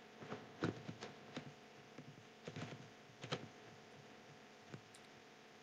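Computer keyboard typing: irregular clusters of keystrokes, faint, thinning out after about three and a half seconds to a single click near the end.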